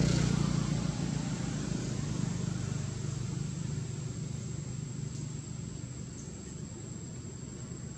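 Low hum of a motor engine, loudest at the start and fading away steadily, with a faint steady high whine above it.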